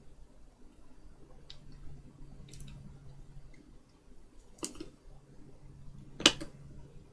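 Scattered small clicks and taps of tweezers working the LCD ribbon cable into its connector on the Nintendo Switch board, the sharpest click about six seconds in, over a faint steady hum.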